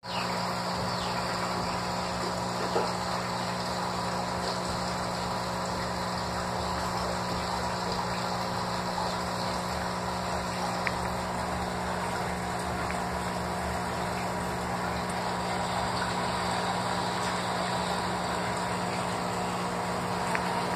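A steady mechanical hum holding several even tones, with a faint click about three seconds in and another about eleven seconds in.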